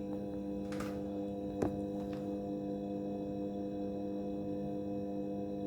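Washing machine running with a steady, many-toned motor hum, with one short click about a second and a half in.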